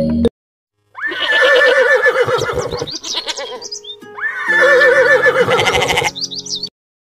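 Two horse whinnies, each about two seconds long with a quavering, shaky pitch; the second begins about four seconds in. These are dubbed sound effects for the toy animals.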